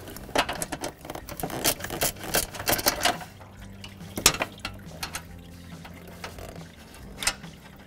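Ratchet clicking in quick irregular runs and metal tools clinking as small 10 mm bolts holding an AC condenser to a radiator are loosened, with one sharp clink about four seconds in.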